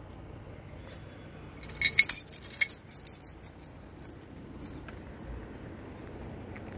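A brief run of metallic jingling and clinking about two seconds in, lasting about a second and a half, over a faint steady background noise.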